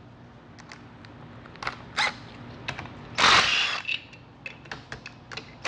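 A cordless power driver runs for under a second a little after three seconds in, backing out one of the 13 mm bolts on a TH350 transmission's front pump. Light metallic clicks and clinks from handling the tool and parts come before and after it.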